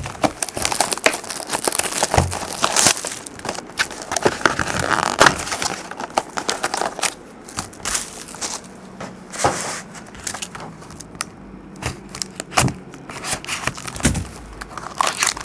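A sealed trading card box and its foil pack being handled and opened: crinkling wrapper and cardboard rustling, with many short clicks and scrapes.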